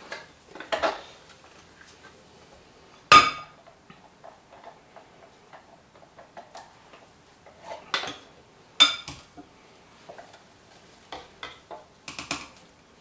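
Wooden spatula scraping ground bologna out of a blender jar, with scattered taps and knocks of spatula and jar. The sharpest knocks come about three seconds in and again near nine seconds.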